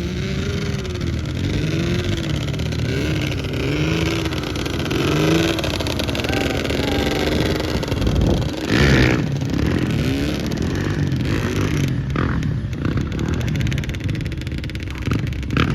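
Small off-road bike engine revving up and down over and over, its pitch rising and falling, with a louder burst of noise about nine seconds in.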